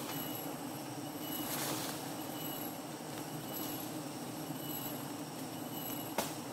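A swarm of wild honeybees humming steadily around their open comb, stirred up by smoke. A sharp click about six seconds in.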